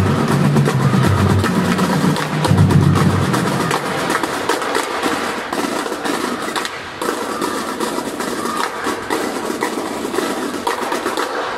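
Indoor percussion ensemble performing: mallet keyboards (marimbas and vibraphones) with drums. Low notes sound during the first few seconds, then the music thins to a rapid run of sharp stick and mallet strikes.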